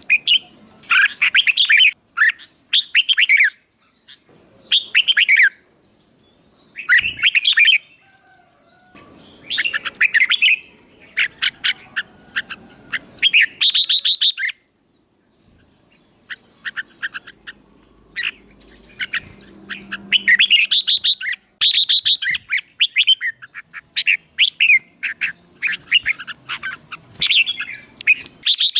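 Songbird singing in repeated short bursts of rapid, chattering phrases, with brief pauses between them.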